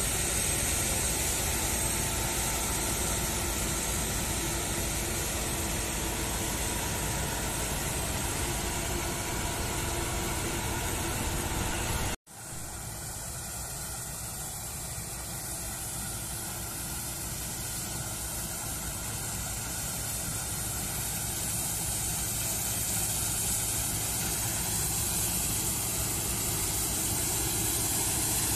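Claas Lexion combine harvesters running while harvesting: a steady drone of engine and threshing machinery with a hiss over it. The sound breaks off abruptly about twelve seconds in, comes back quieter, then grows steadily louder toward the end as a combine draws near.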